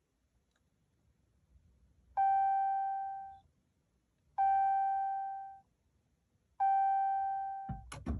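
Dashboard warning chime of a 2020 Ram 2500 with the 6.7 Cummins diesel ringing three times, about two seconds apart, each ding fading over about a second, during a start attempt on a truck that will not start. A couple of sharp clicks near the end.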